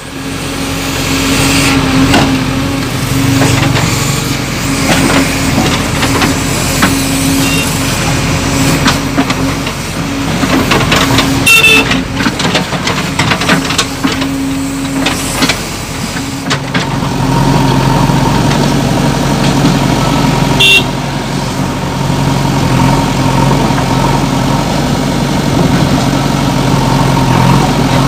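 JCB 3DX backhoe loader's diesel engine running steadily, its note dropping lower a little past halfway. There is a burst of clatter around twelve seconds in and a brief high-pitched tone about twenty seconds in.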